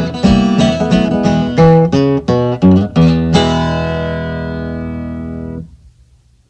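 Acoustic blues guitar closing the song: a quick run of plucked notes and bass strokes, then a final chord struck about three seconds in. The chord rings for a couple of seconds, then cuts off abruptly near the end.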